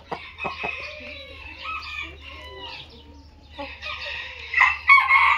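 Chickens calling and clucking, with a few sharp taps near the start and a rooster crowing loudly near the end.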